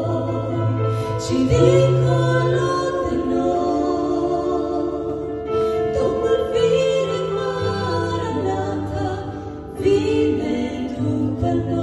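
Two women singing a Christian song as a duet in long held notes, with piano accompaniment.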